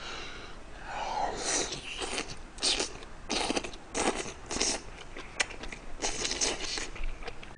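Close-miked eating: a man chewing mouthfuls of braised chicken and aged kimchi stew, in irregular short bursts of mouth noise, roughly two a second.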